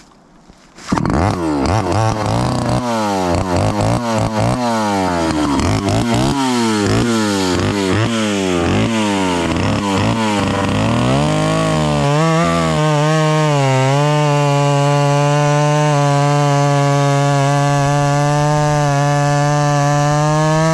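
Homemade chainsaw powered by a Yamaha KT100 two-stroke kart engine starting up about a second in, then revved up and down over and over. From about twelve seconds it is held at full throttle at a steady high pitch for the cookie cut through the log.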